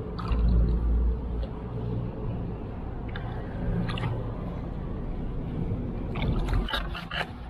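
Water sloshing and splashing around hands holding a river catfish in the shallows as it is revived and let go, with a burst of sharper splashes a little after six seconds as the fish kicks free. A low hum runs underneath.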